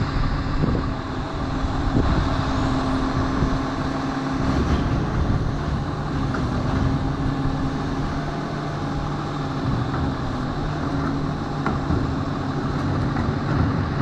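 Lodal EVO garbage truck's engine running steadily at low speed, a low even hum, with a few light clanks from the truck's work.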